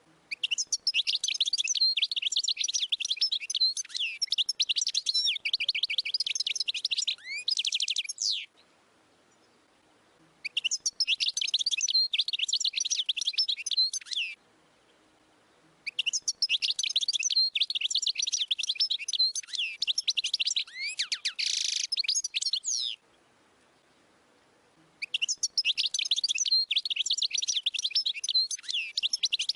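European goldfinch singing in long bursts of rapid, high twittering, each several seconds long and split by short pauses. A denser, harsher stretch comes near the end of the third burst.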